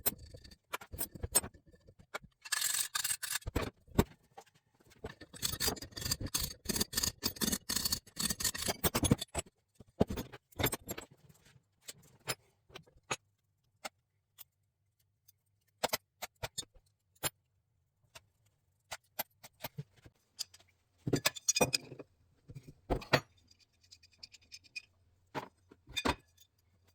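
Small metal carburetor parts and hardware clinking and rattling as they are handled and sorted. There are two busy spells of rattling in the first nine seconds or so, then scattered single clicks.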